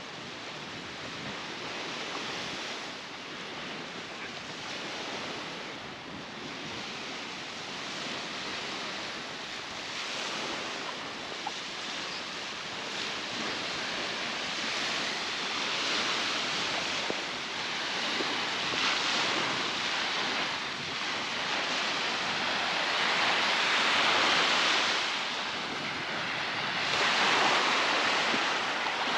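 Baltic Sea surf washing onto a sandy beach: a steady hiss of breaking waves that swells every few seconds and grows louder toward the end.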